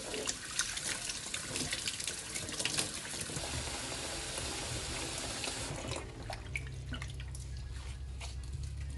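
Kitchen tap running into a sink, with small knocks and splashes from washing squid under the water; the water is shut off about six seconds in, leaving a low steady hum.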